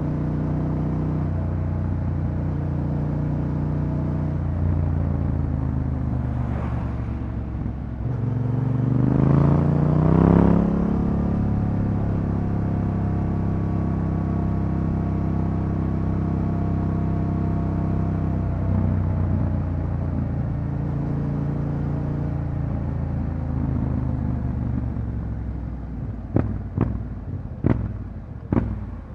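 Yamaha Ténéré 700's 689 cc parallel-twin engine through an Akrapovič exhaust, heard from the rider's seat: it runs steadily, rises in pitch as the bike accelerates about a third of the way in, then settles back to a steady cruise. Near the end come several sharp cracks as the engine sound drops.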